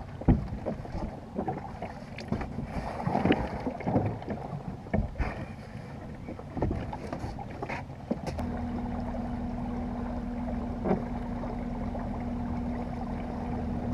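Knocks and clatter of people climbing into and shifting about in a jon boat, then about eight seconds in a small boat motor starts and runs with a steady hum.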